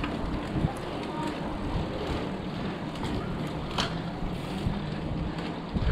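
Wind rushing over an action camera's microphone and bicycle tyres rolling on asphalt as a mountain bike coasts down a street, with a few sharp clicks and knocks from the bike.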